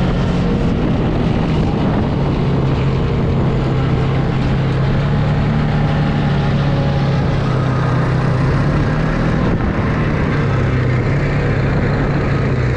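ATV engine running at a steady cruising speed, a constant low drone, heard from the quad the camera rides on.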